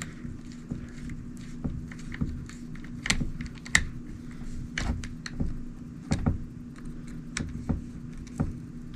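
Irregular small clicks and taps of a hand tool on the motor mount screws of a Traxxas Stampede RC truck as they are tightened after setting the gear mesh, over a steady low hum.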